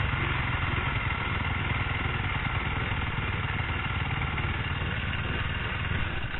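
Off-road motorcycle engine idling steadily.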